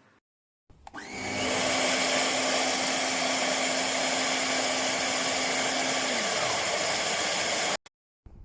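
JIMMY JV35 handheld anti-dust-mite vacuum cleaner switched on: its motor spins up within about half a second to a loud, steady whine. A lower hum slides down and fades about six seconds in, and the sound cuts off abruptly just before the end.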